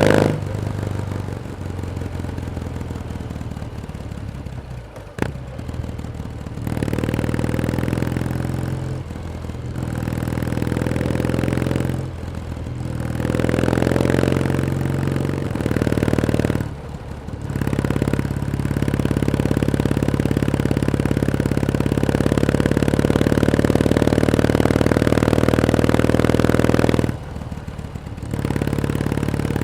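Kawasaki W1S vertical-twin engine running under way, with the throttle shut off briefly several times and opened again. Its note climbs steadily through the later part. A single sharp click comes about five seconds in.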